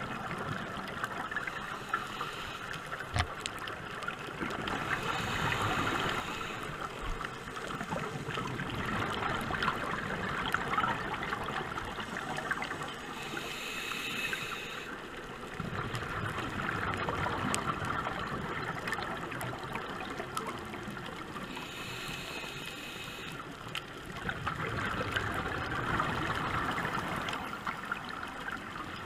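Scuba diver breathing through a regulator underwater: a short hiss on each inhale, then a longer stretch of bubbling on each exhale, about three breaths.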